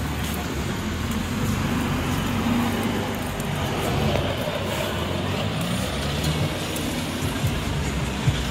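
Street traffic: the engines of passing road vehicles give a steady low rumble under general street noise, with one sharp click near the end.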